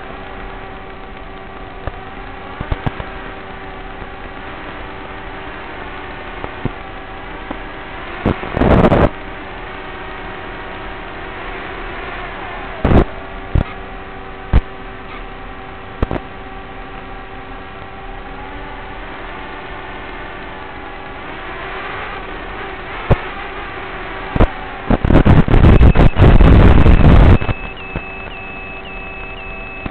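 Steady electronic hum and hiss on the audio channel of an analog FPV video link, with faint held tones. It is broken by loud bursts of static about 9 seconds in, around 13 seconds, and again for a couple of seconds near the end, as the radio signal breaks up.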